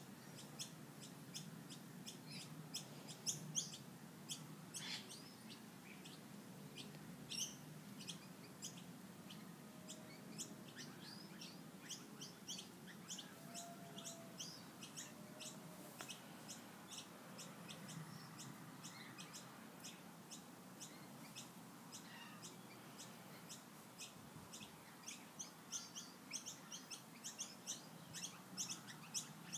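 Faint bird chirping: short high chirps repeated a few times a second, with a few lower whistled notes around the middle.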